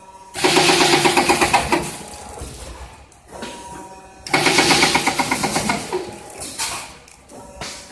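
Spiral center tube making machine (PLJY-75-II) running through its work cycle: two loud, fast-rattling mechanical bursts of about a second and a half each, about four seconds apart, with a quieter steady hum between.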